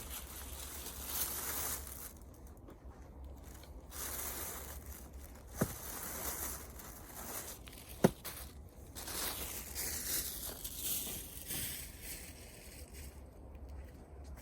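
Wood bonfire crackling and hissing in uneven surges, with two sharp pops, about five and a half and eight seconds in, the second the loudest.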